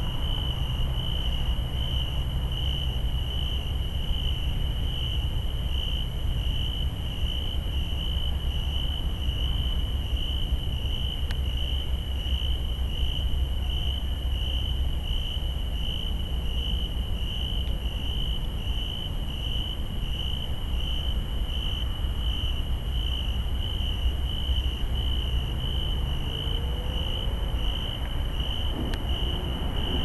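A singing insect chirping in a steady, high-pitched, evenly pulsing song that carries on without a break, over a low rumble underneath.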